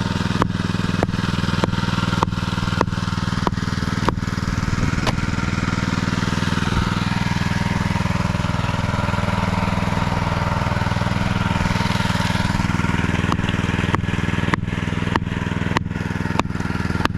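An engine running steadily at constant speed. Sharp clicks come in a regular rhythm a little under twice a second, pause for several seconds midway, then start again.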